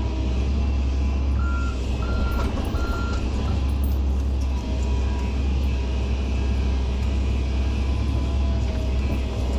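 Excavator's diesel engine running with a steady low drone, while about a second and a half in a reversing alarm beeps three times.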